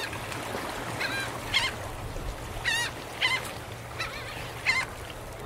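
Birds calling in a series of short calls with wavering pitch, about eight of them, one every half second to a second, over a steady low hum.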